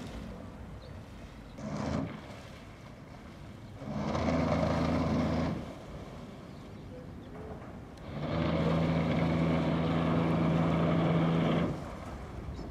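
Jeanneau 57's bow thruster run in three bursts as the yacht manoeuvres off the dock: a brief blip about two seconds in, a run of about a second and a half, then a longer one of about three and a half seconds, each a steady hum over a low drone.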